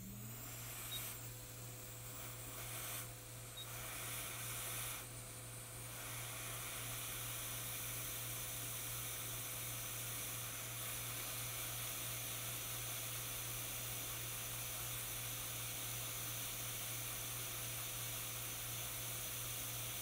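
Hot air rework station blowing a steady hiss of air over a small chip to solder it onto a laptop logic board. The hiss starts right at the beginning, over a low steady hum.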